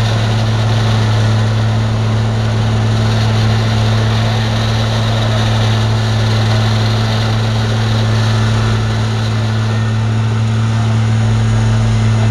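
Terex CR552 asphalt paver's diesel engine running at a steady speed, a constant even hum under the noise of the paving work.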